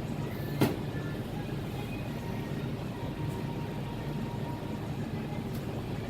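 Steady low machinery hum with a faint high steady tone over it, and one sharp click a little over half a second in.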